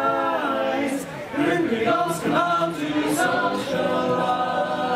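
A small group of voices singing a cappella in harmony, holding notes that change every half second or so, with no instruments.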